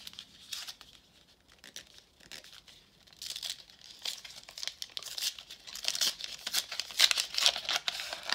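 Foil-wrapped 1991 Upper Deck baseball card pack being crinkled and torn open by hand. A few faint rustles at first, then the crinkling gets denser and louder over the last few seconds.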